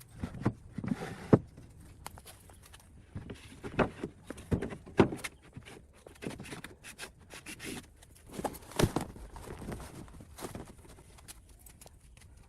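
Irregular knocks, taps and clicks, a few louder than the rest, from hands working with wood and tools.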